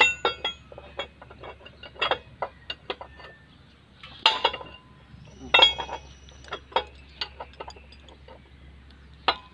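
Hand tools clinking and tapping on the metal valve train of an Isuzu 4BE1 engine during valve clearance adjustment. Scattered sharp metallic clinks, some ringing briefly, with louder clusters about two, four and five and a half seconds in.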